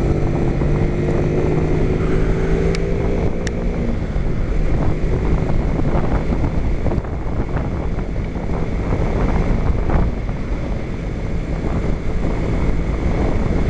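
Kawasaki Ninja 250 parallel-twin engine running at road speed under heavy wind noise on the helmet microphone. The engine's steady tone rises slightly in pitch for the first few seconds, then sinks beneath the wind.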